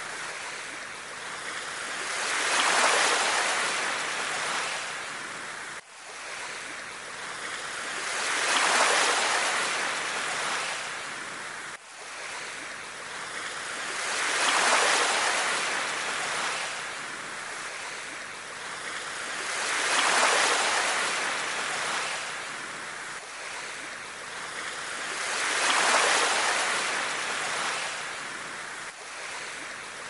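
Small sea waves washing up on a sandy beach, the wash swelling and fading about every six seconds.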